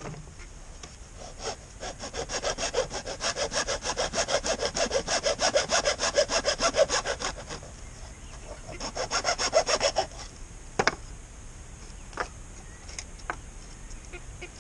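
Hand saw cutting plastic pipe with quick, even back-and-forth strokes, about four a second, in two spells with a short pause between, followed by a few light clicks.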